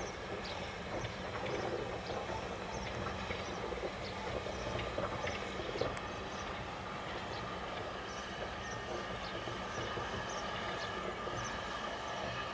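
LMS Stanier Mogul 2-6-0 steam locomotive moving slowly as a light engine. It gives a steady low rumble with scattered light clicks and clanks.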